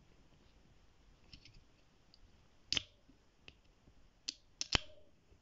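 A few sharp, short clicks in a quiet room: one about three seconds in and a close pair near the end are the loudest, with fainter ticks between.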